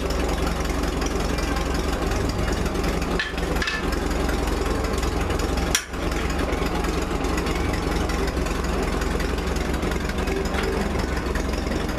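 Vintage Model R tractor's engine idling steadily.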